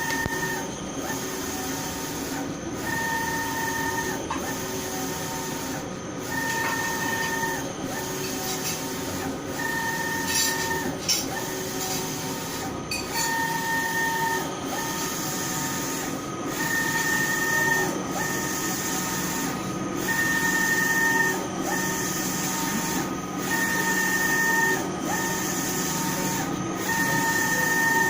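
Eyecolor JC-2000 UV printer running: the print carriage shuttles back and forth, its motor giving a whining tone for about a second on each pass, roughly every three seconds, over a steady machine hum.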